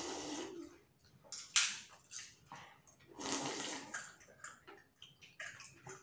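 Slurping of golgappa pani (spiced water) drunk straight from a steel bowl. It comes as several short noisy sucks with gaps between, the longest about three seconds in.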